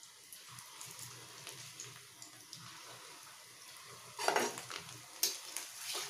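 Paneer-potato balls deep-frying in hot oil in a metal kadai, a faint steady sizzle. About four seconds in a perforated frying spoon starts stirring them, scraping and clinking against the kadai, several times louder than the sizzle.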